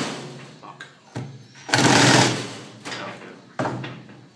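Cordless screw gun driving screws into thick pallet wood, its motor running in short bursts that stop and start: a long run about two seconds in and shorter ones near the start and near the end.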